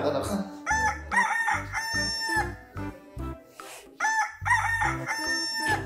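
Rooster crowing several times, with low bass notes beneath.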